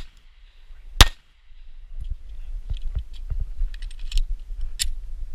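A single 9 mm shot from a Glock 43 subcompact pistol about a second in, with a short ring-out. It is followed by a run of light metallic clicks and rattles of a reload with the slide locked back, and a sharper click near the end.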